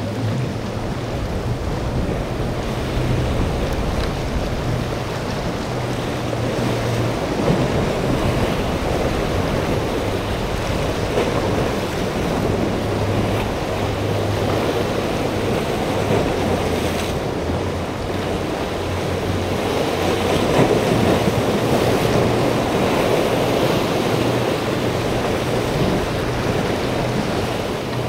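Choppy sea water splashing and wind buffeting the microphone, under a low steady drone from outboard-powered boats running through the inlet.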